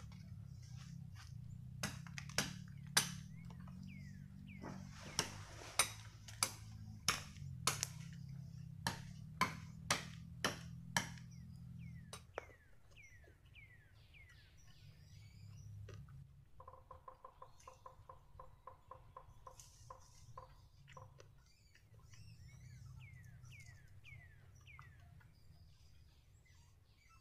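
A dozen sharp cracks, about one a second, during the first twelve seconds. After that, forest birds chirp in short falling notes, with a rapid pulsing call for several seconds in the middle.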